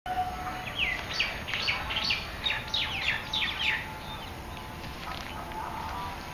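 A bird singing a quick run of about ten falling notes over about three seconds, then breaking off.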